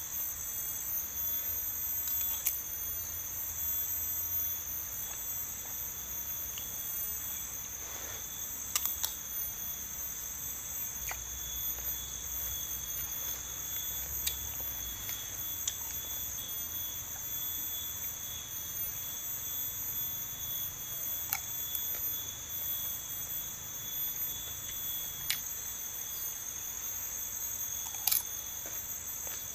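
Steady insect chorus trilling in several unbroken high-pitched tones, with a few light clicks scattered through it.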